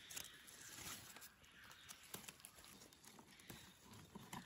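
Near silence, with faint rustling of dry leaf litter and a few light clicks as a wild mushroom is picked and its stem cut.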